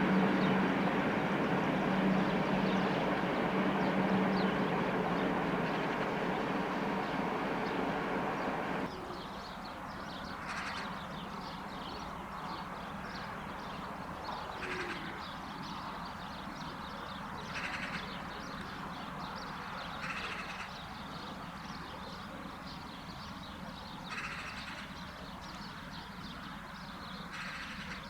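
A train running by with a steady rumble and hum, cutting off abruptly about nine seconds in. After it, in quieter surroundings, a bird calls six times, a few seconds apart.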